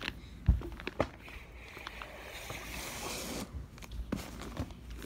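Wrapped presents being handled: wrapping paper rustling and sliding, with a few soft knocks about half a second in, a second in and near four seconds.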